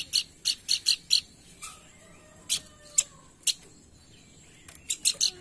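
Pelanduk bukit bird calling in short, sharp, high chip notes. A quick run of about five opens the call, three single notes follow spaced about half a second apart, and another fast run comes near the end.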